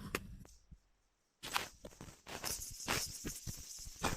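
A run of sharp cracks and clicks, several in a row after a short gap of near silence about a second in, the loudest near the end.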